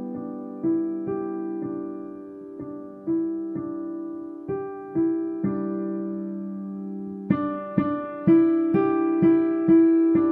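Piano played with both hands, a slow, gentle beginner-level piece: held notes that sound and fade one after another. About seven seconds in the playing grows louder and brighter, with notes coming about twice a second.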